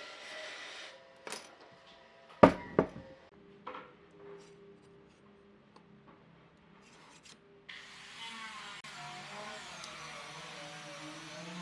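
Workshop tool sounds on wood. A power tool's hum dies away, then come a few sharp wooden knocks, the loudest about two and a half seconds in. After a quieter stretch a power tool starts up again near the end, its pitch dipping and recovering.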